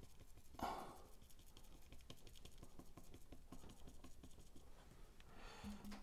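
Faint, irregular taps and scratches of a small, worn flat brush dabbing acrylic paint onto canvas, with a short soft rush of noise under a second in.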